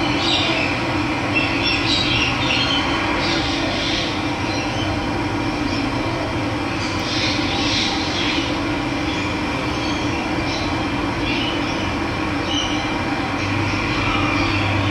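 Steady rush of running water, with birds chirping here and there above it.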